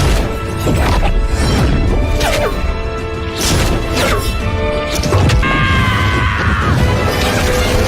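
Dramatic fight-scene music laid under repeated heavy impact and crash sound effects from an animated battle. About five and a half seconds in, a bright ringing tone slides downward in pitch.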